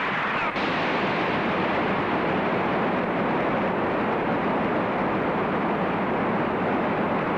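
Film sound effect of a toy thermonuclear device detonating: a dense, steady rush of noise.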